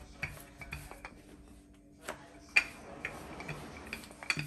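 Wooden rolling pin rolling roti dough out on a wooden board, with scattered light knocks and clicks; one sharper knock about two and a half seconds in.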